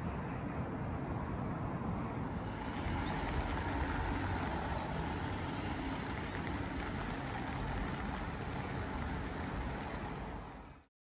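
Street ambience with steady road-traffic noise and a low rumble. About two seconds in it becomes brighter and more hissy, and it fades out quickly near the end.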